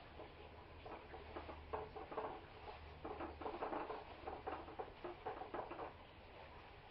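Faint, irregular rustling and scuffing of nylon webbing straps being handled and pulled over a fabric-covered dress form.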